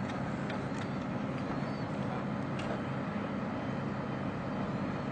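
An engine running steadily: an even low rumble with a constant hum, and a few faint light clicks.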